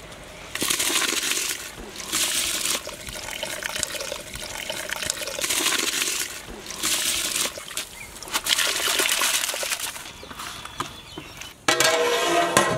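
Soaked basmati rice sliding from a plastic tub into a big aluminium pot of boiling water: a hissing, splashing pour that comes in about five surges of a second or so each. Near the end, a short ringing sound as the metal lid is set on the pot.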